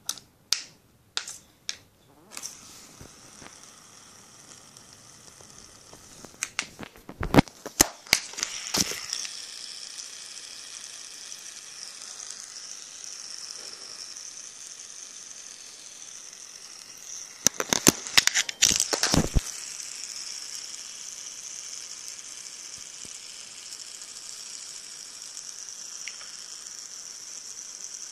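A cracked rose-red fidget spinner, its weights come out, whirring steadily on its bearing with a high, even whine. Twice there is a burst of clicking and knocking, after which the whir picks up again.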